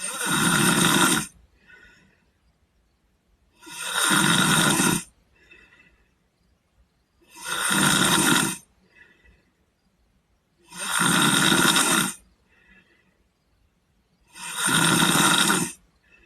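A sleeping boy snoring: five loud snores on the in-breath, each about a second long and coming evenly every three and a half seconds, each followed by a faint breath out.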